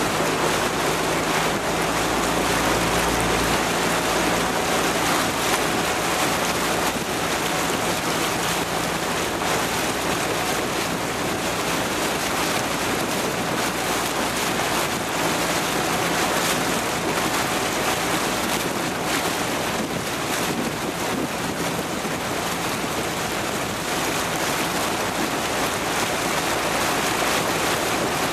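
Steady rush of water and wind on the microphone while moving alongside sprint kayaks being paddled, with a faint steady hum underneath.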